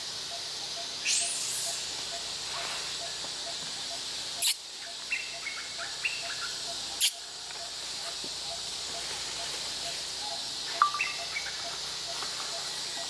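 Forest ambience: steady high insect buzzing with a regular pulsing call about three times a second, and short bird chirps at a few moments. Two sharp clicks, about four and a half and seven seconds in, are the loudest sounds.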